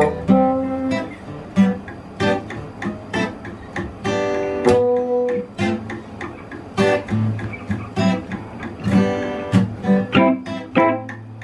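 A band plays an instrumental passage without vocals: a guitar picks and strums a quick run of notes over a low sustained bass.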